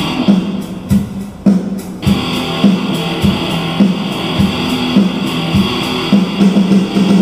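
Background music led by guitar, with a steady rhythmic pulse.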